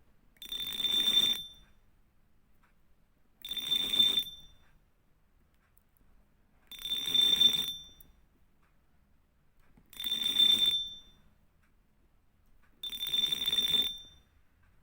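Fishing reel drag buzzing out in five short bursts, each about a second long and roughly three seconds apart, with a high ringing tone over a rasping ratchet.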